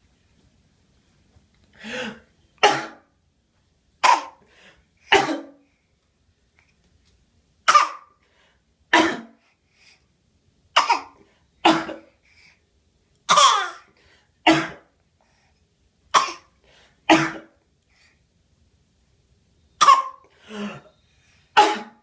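A baby girl's deliberate fake cough, repeated about fifteen times. The short, strained coughs come mostly in pairs, with brief pauses in between. They are put on for show, not a sign of illness.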